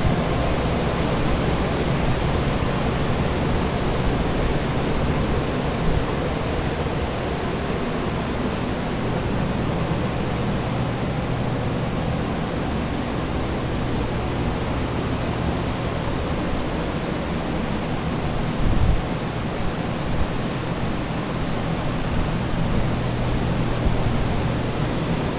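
Several carpet-drying air movers and dehumidifiers running together, drying out a water-damaged office: a steady rushing fan noise with a low motor hum underneath.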